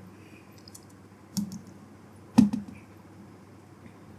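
Two light knocks about a second apart, the second the louder, with a few faint clicks around them: small objects being handled and set down during a phone repair.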